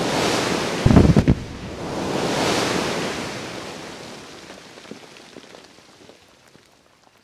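Limestone quarry production blast: several blast holes detonate in quick succession about a second in, followed by a long rushing rumble of thrown rock and dust that swells and then dies away. Scattered small ticks of rock fragments landing are heard as it fades.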